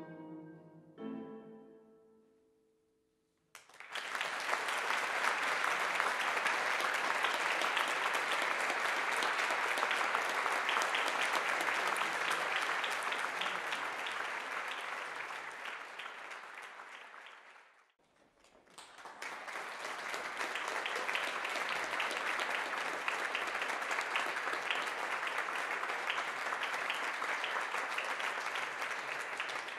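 The last notes of a piece ring out and die away, then after a short pause a concert audience breaks into sustained applause. The applause drops out abruptly about two-thirds of the way through, starts again a second later and begins to fade near the end.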